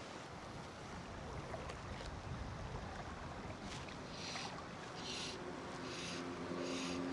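Steady rush of river water and wind. From about four seconds in, a short high rasping sound repeats roughly once a second, and near the end a low steady hum comes in.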